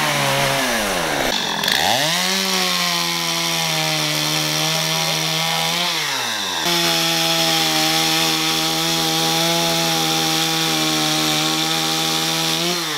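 Chainsaw running at high revs while cutting up branches. Its pitch dips and climbs back as the throttle is eased and opened about a second in, drops briefly again about six seconds in, and falls away near the end.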